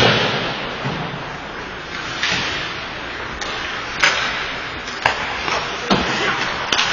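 Ice hockey play: skates scraping on the ice, with a string of sharp clacks and knocks from sticks, puck and boards, one right at the start and several more in the second half, each ringing briefly in the rink.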